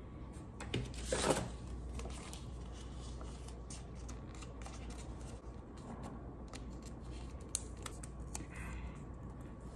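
Light rustling and scattered small clicks of a small paper strip being handled in the fingers, with a louder rustle about a second in.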